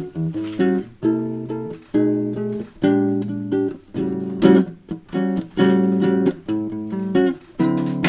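Background music: acoustic guitar playing chords in a steady rhythm.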